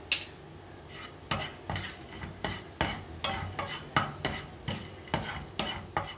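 A plastic spatula scraping across a dry nonstick frying pan, stirring whole cinnamon, cloves and cardamom as they dry-roast without oil. The short scraping strokes come about two or three a second, starting about a second in.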